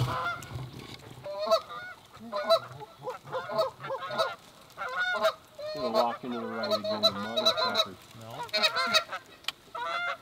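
Canada geese honking and clucking in quick, uneven calls, with a longer, lower drawn-out call about six to eight seconds in.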